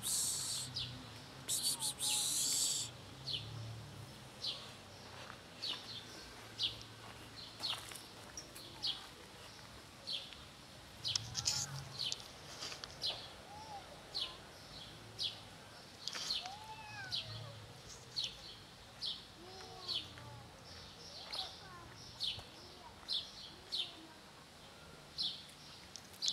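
A bird chirping over and over, short high chirps about once a second, with a few fainter rising-and-falling calls in the middle. A brief rustle near the start.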